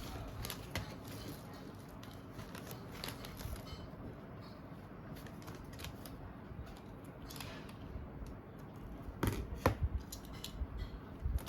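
Hands handling a disassembled iPhone 3GS and its loose parts: a run of small plastic and metal clicks and rustles, with a few sharper clicks about nine seconds in.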